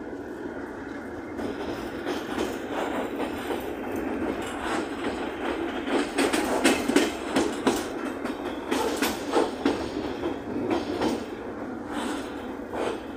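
Moving passenger train heard from inside the coach by the window: a steady running rumble, with a dense run of clacks and rattles through the middle of the stretch that then thins out again.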